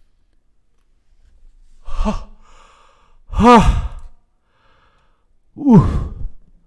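A man's voice letting out three short, breathy "ha" exclamations, a second or two apart. The second rises and falls in pitch, and the last falls away.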